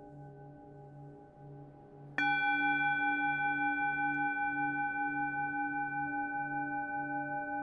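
A singing bowl tuned to D, the sacral chakra tone, rings with a slow pulsing wobble. It is struck again about two seconds in, and the new, louder ring fades only slowly.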